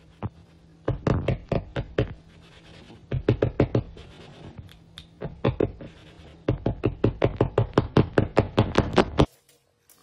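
Rapid tapping strikes by a hand, in four runs of about six or seven strikes a second, the longest near the end; it is made to get the cat's attention.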